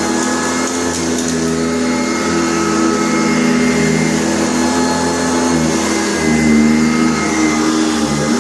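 Sanitaire SC684 upright vacuum cleaner running steadily, its motor whine wavering a little in pitch.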